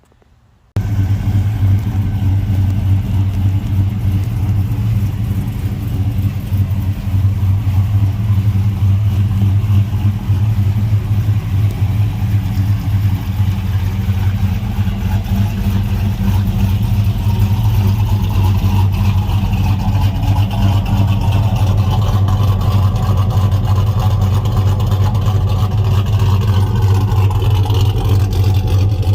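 A truck's V8 engine running steadily at a fairly high, even speed. It cuts in abruptly about a second in.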